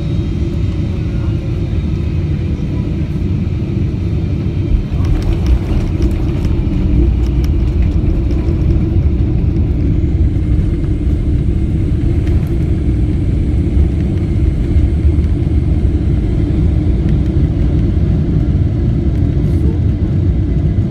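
Boeing 777-300ER cabin noise during landing: a steady low rumble of engines and airflow, then a sudden jolt and rattle at touchdown about five seconds in, followed by a louder rumble as the airliner rolls out along the runway.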